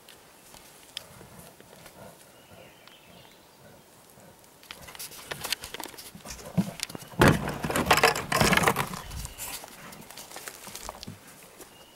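A bear moving heavily through brush: crackling twigs and thumping footfalls in a burst that is loudest about seven to nine seconds in, then fades.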